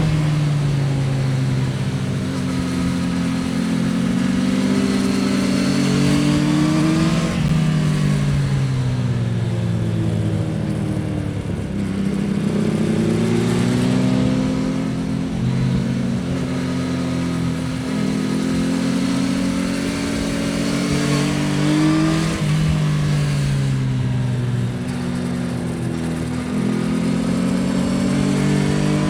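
2024 Yamaha XSR900's 890 cc CP3 inline-three engine and exhaust under riding load, its pitch climbing as it accelerates and falling as it slows, several times over.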